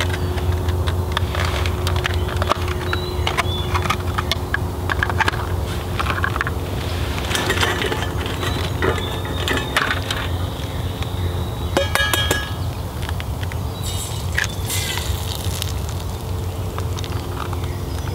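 Alcohol stove burning with a steady low rumble under a small carbon steel pan, with sharp clicks and clinks from eggs and cookware being handled.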